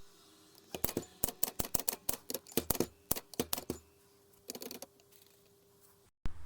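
A quick, uneven run of about twenty sharp clicks over some three seconds, then a short cluster of clicks, over a faint steady hum; the sound cuts off abruptly near the end.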